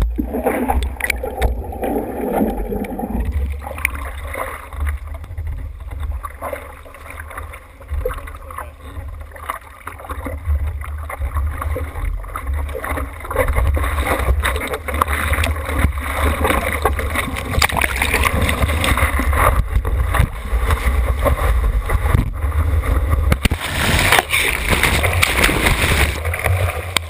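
Seawater sloshing and splashing around a camera at the surface as a surfer paddles a surfboard, over a steady low rumble. It turns louder and hissier near the end as whitewater washes over the camera.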